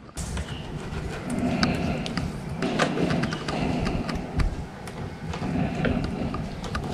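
Hand-handling noise as a thin steel steering cable is worked through a fitting on a kayak, with frequent small irregular clicks and ticks over a steady rustling rumble.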